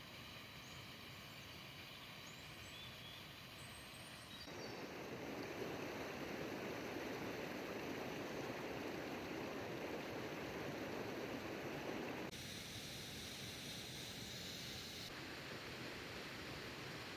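Steady rush of running water from a small stream or waterfall, growing louder and fuller about four seconds in and dropping back abruptly near the end. A few faint chirps sound in the first few seconds.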